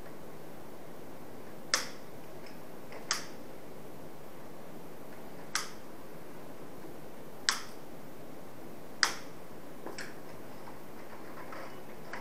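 Hand-held side cutters snipping through cable, about six sharp snips spaced one to two seconds apart.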